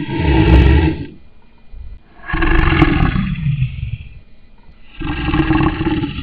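A lion roaring in repeated deep roars: one dies away about a second in, a second runs from about two to four seconds, and a third begins near the end.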